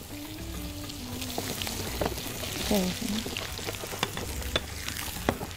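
Sliced onions frying in butter and oil in a pan, a steady sizzling hiss, with a few sharp clicks as more slices are dropped in.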